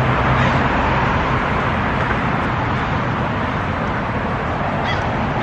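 Steady road traffic noise of cars driving by, with a low engine hum that fades in the first second.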